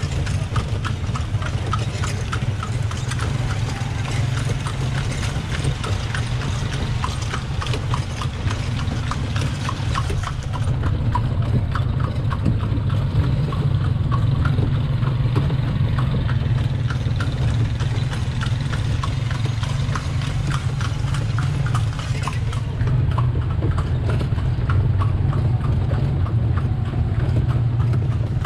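Horse's hooves clip-clopping at an even pace on a cobblestone street as it pulls a horse-drawn cart, over a steady low rumble.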